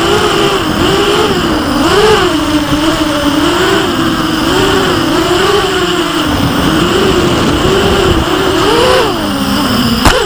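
FPV racing quadcopter's electric motors whining, the pitch rising and falling repeatedly as the throttle changes. A sharp knock comes near the end.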